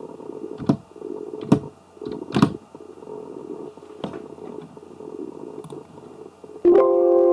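Four single keyboard keystrokes, spaced about a second apart, over a steady low rumbling background noise. Near the end a sudden ringing tone with several pitches comes in loud and fades out over about a second and a half.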